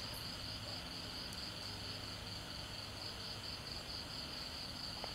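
Crickets chirping in a steady, evenly pulsing high trill, over a faint low hum.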